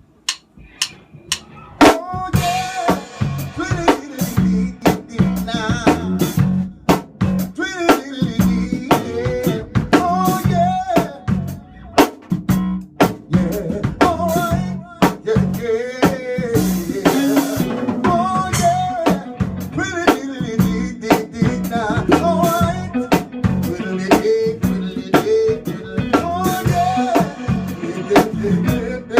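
A band playing an upbeat number on drum kit with snare and bass drum, guitar and a wavering melody line. A few sharp clicks come first, and the full band comes in about two seconds in.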